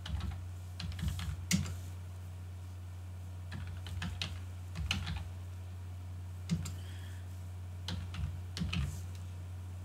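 Computer keyboard being typed on: short runs of key clicks separated by pauses, over a steady low hum.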